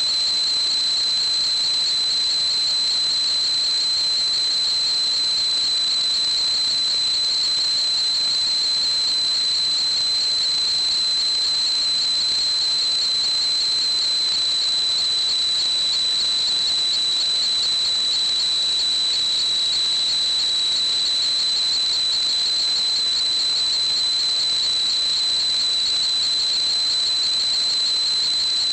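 A steady high-pitched whistle over a hiss, holding one pitch without a break.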